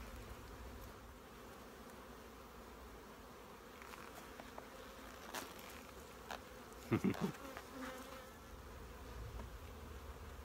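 Honey bees buzzing around an opened hive, a steady faint hum. A few light clicks and knocks as a wooden frame is handled, and a short louder buzz about seven seconds in.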